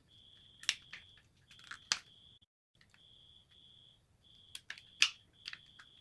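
Rubber bands being stretched and hooked onto a wooden rubber band gun, with sharp snaps and clicks of band and wood, a few about a second in and another cluster near the end. Under them runs a faint high tone that keeps breaking off and starting again.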